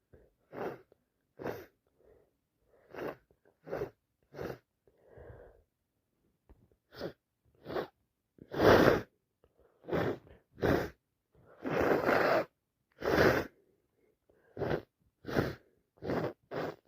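A woman with a heavy head cold in a long run of sneezes and sharp breaths through a congested nose, about fifteen short bursts. The loudest come about nine and twelve seconds in.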